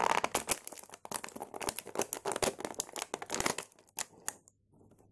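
Clear plastic blister packaging crinkling and crackling as an action figure is worked out of its tray, a dense run of crackles that thins out and stops about four seconds in.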